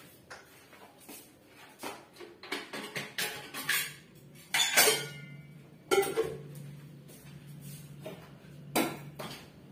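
Kitchen clatter of a metal pot and utensils being handled and set down at the counter and sink: a run of clicks and clanks, the loudest a metallic clank about five seconds in that rings briefly, with sharp knocks near six and nine seconds.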